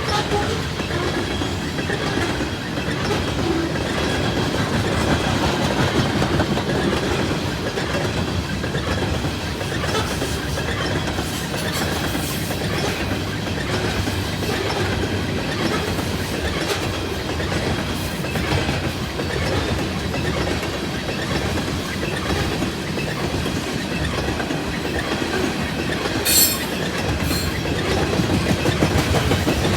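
A loaded coal train's cars rolling past with a steady rumble and the repeated clickety-clack of wheels over rail joints. A brief sharp high-pitched screech stands out near the end.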